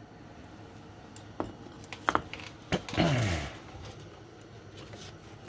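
A few sharp metallic clinks and knocks as steel wheel hub bearing assemblies are handled and set down. A short low vocal sound comes about three seconds in.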